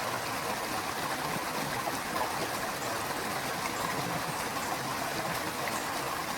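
Small waterfall and river water splashing and rushing steadily.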